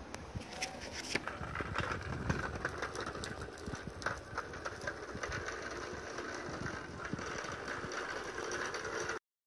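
Steady whine of electric hub motors on self-balancing scooters rolling along an asphalt road, with tyre rumble and scattered small clicks and knocks. The sound cuts off suddenly just before the end.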